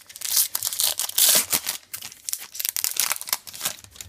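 Trading card pack wrapper being torn open and crinkled, loudest about a second in, then smaller crackles as it is handled.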